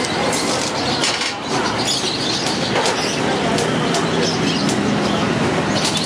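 Electric arc welding on a steel-wire cage: dense, steady crackling of the welding arc, with a low steady hum beneath.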